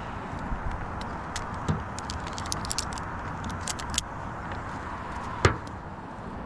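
Carabiners and rigging hardware clinking in a quick cluster of light metallic clicks as they are clipped on, with one sharper click near the end, over a steady background noise.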